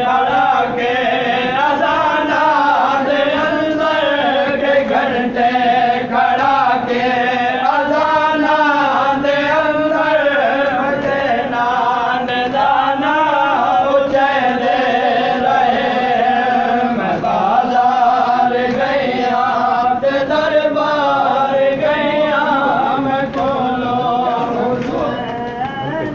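Male voices chanting a noha, the Shia mourning lament, in long wavering melodic phrases with no break.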